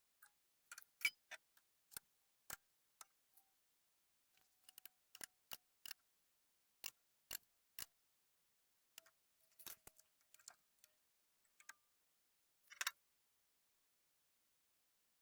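Steel tubing and a tube bender being handled: irregular sharp metallic clicks and taps, with a brief rattle near the end as the loudest.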